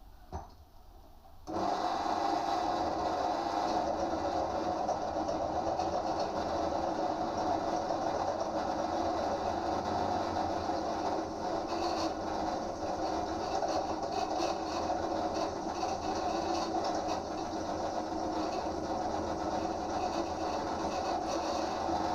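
Pillar drill starting up about a second and a half in, then running steadily with an even motor hum while the bit drills through steel lubricated with cutting oil.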